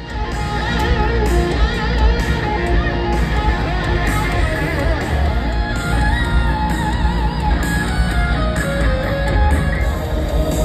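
Live rock band playing over a stadium PA: electric guitar lines over heavy bass and drums, cutting in suddenly at the start.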